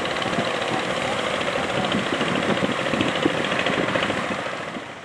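Fishing boat engine running with a fast, rough, even chugging. It fades away near the end as the boat moves off.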